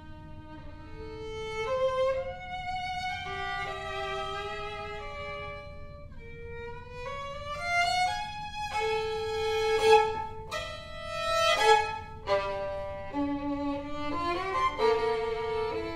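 Solo violin playing: slower held notes that slide between pitches in the first few seconds, then a louder, more intense passage with sharply accented chords in the second half.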